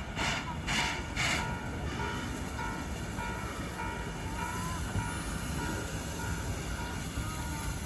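C12 steam locomotive approaching, with steam exhaust chuffs at about two a second that stop about a second and a half in, after which it comes on without them. Behind it a signal tone beeps in a steady on-off pattern.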